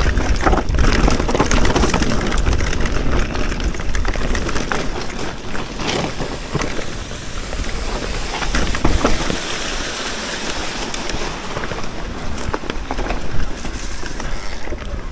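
E-mountain bike riding down a rough trail: tyres rolling over dirt and stones, with many small clicks and knocks of the bike rattling over the bumps. Wind rumbles on the microphone, strongest in the first few seconds.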